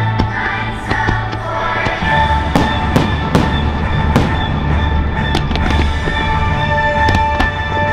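Fireworks show: a string of sharp firework bangs, starting about two and a half seconds in, over the show's loud music soundtrack.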